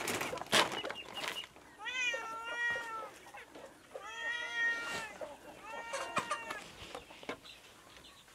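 A cat meowing for food: three drawn-out meows of about a second each, with a couple of sharp clicks in the first second and a half.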